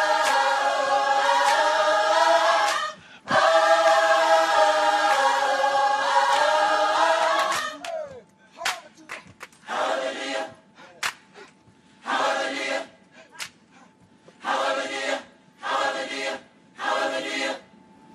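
Gospel choir singing in close harmony without instruments: two long held chords, then from about eight seconds in a run of short, separated chord stabs with brief silences between them, and a few sharp claps among them.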